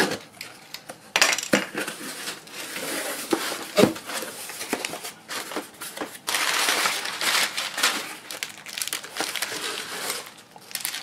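Tape peeled off a cardboard box and the flaps pulled open, with a few sharp cardboard knocks, then hands rustling and crumpling brown kraft packing paper inside the box, most densely a little after the middle.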